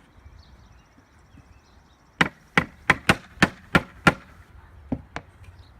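Rubber mallet pounding the glued last side of a wooden Langstroth hive box into place. Seven sharp strikes, about three a second, then two lighter taps.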